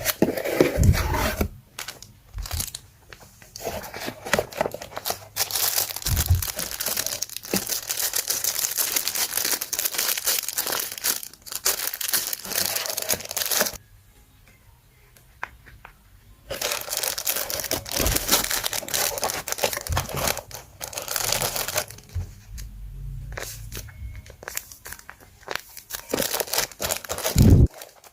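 Paper crinkling and tearing as it is handled and wrapped by hand. It comes in long runs of dense crackling, with a pause of a few seconds about halfway.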